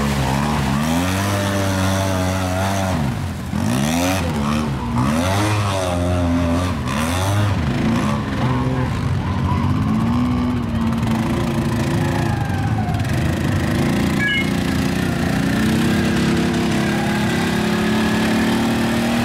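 Off-road engine revving hard in deep mud, its pitch rising and falling over and over for about the first half, then held at steady high revs with the wheels spinning as the quad ATV stays bogged down.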